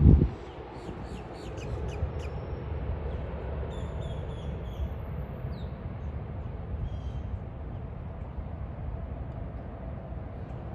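Birds calling over a steady low rumble: a quick run of short, harsh calls in the first two seconds, then a few higher chirps later. A brief loud thump comes right at the start.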